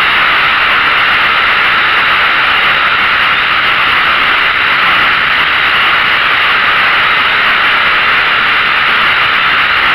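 Small camera drone's propellers and motors heard from its own onboard camera: a loud, steady hiss that holds unchanged throughout.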